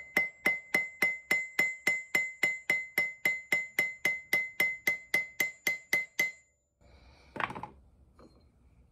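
Hammer peening over a steel rivet to pin a wrench jaw: rapid, even taps about four a second, each ringing with a clear high metallic note. They stop about six seconds in, and a short softer knock or scrape follows.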